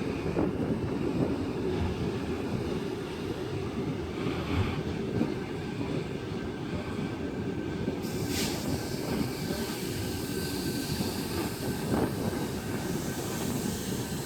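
Hauled passenger cars of a new Intercity Fleet (NIF) train set rolling past on rails: a steady low rumble of wheels on track with a few faint clicks.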